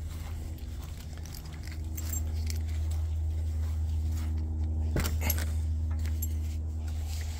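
Metal jingling from a walking dog's harness and leash, over a steady low hum, with two sharp clicks about five seconds in.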